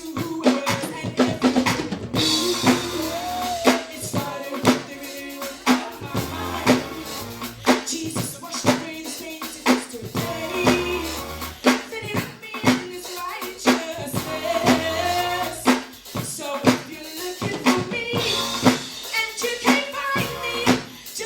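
Upbeat gospel music with a drum kit keeping a steady beat of bass drum and snare or rimshot hits, over a bass line and a melody.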